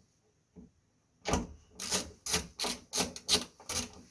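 Screwdriver driving a T25 screw into a washing machine door hinge, a run of rasping strokes about three a second, starting a little over a second in.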